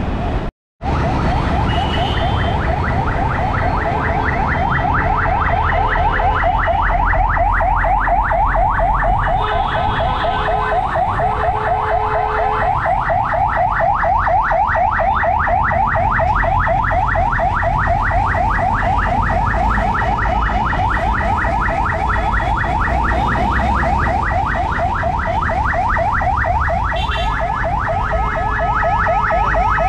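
A continuous, fast electronic warble like a car alarm, repeating evenly without change over a low traffic rumble. The sound cuts out completely for a moment about half a second in.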